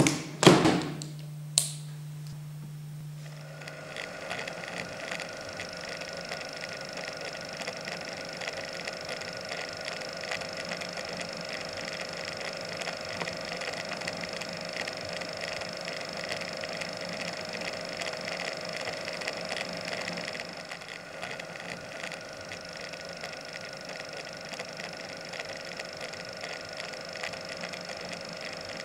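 A few clicks and knocks as a coaxial film magazine is latched onto an Arriflex 16SR 16 mm camera, then, from about three and a half seconds in, the self-blimped camera running: a steady whirr of its motor and film transport with an even high whine.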